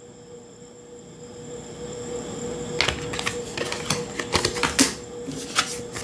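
Tarot and oracle cards being laid down and slid onto piles on a cloth-covered table: a quiet stretch, then a run of light clicks and taps starting about three seconds in.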